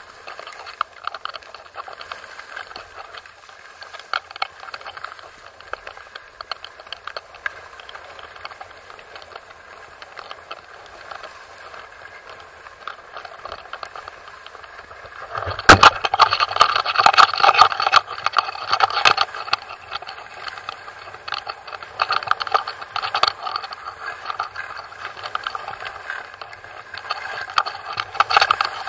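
Scraping and rattling of a rider sliding down a snowy slope, picked up by a body-worn action camera, with many small clicks; it gets abruptly louder about halfway through as the pace picks up.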